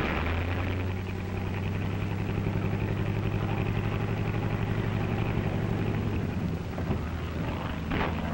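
Propeller aircraft's piston engine running steadily as a low, even drone.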